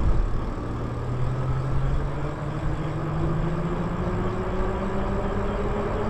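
Lyric Graffiti e-bike riding along a paved road: a steady rumble of tyres and wind noise, with the electric motor's faint whine rising slowly in pitch as the bike picks up speed.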